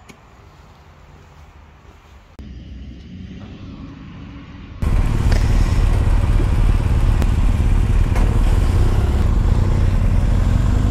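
Quiet outdoor background for the first few seconds, then, about five seconds in, a BMW R1250 GS's boxer-twin engine comes in suddenly, loud and close through the rider's helmet camera, running steadily as the motorcycle rolls off at low speed.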